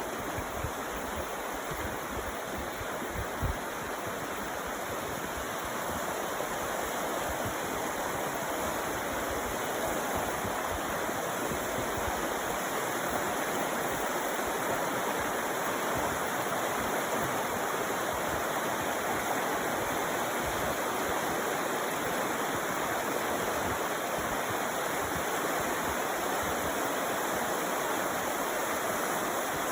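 Creek water flowing steadily, an even rushing hiss that does not change. A brief low thump sounds about three and a half seconds in.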